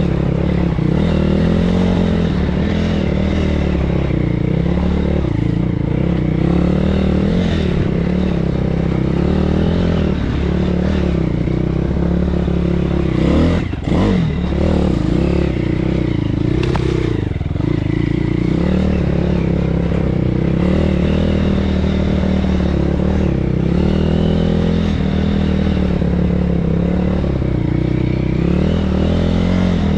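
BSE PH 150e pit bike's 150 cc single-cylinder engine running while being ridden, its pitch rising and falling with the throttle. Around the middle there is a sharp clattering knock.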